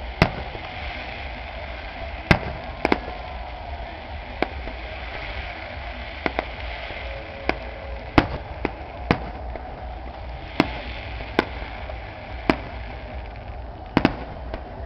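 Aerial firework shells bursting: a string of sharp cracks at irregular intervals, sometimes two or three close together, over steady background noise.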